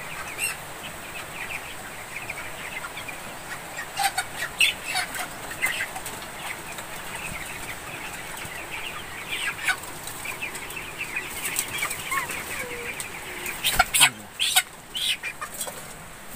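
A flock of young broiler chickens cheeping, with flurries of wing flapping as birds are grabbed by hand; one flurry a few seconds in and the loudest near the end.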